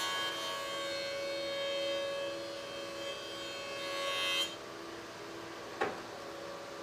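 A cherry board being cut by the spinning cutterhead of a running woodworking machine, with a steady whine and hiss for about four and a half seconds that stops abruptly. A single sharp knock follows about a second later over the machine's steady hum.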